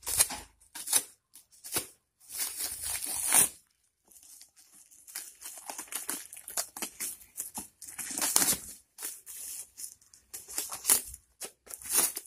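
Polythene wrapping on a cardboard parcel being slit with a utility knife and torn open, crinkling and ripping in short irregular bursts, with a brief pause about three and a half seconds in.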